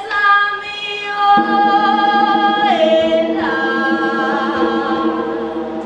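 A woman singing unaccompanied in long held notes, her voice dipping lower about three seconds in. A second, lower voice joins underneath about a second and a half in.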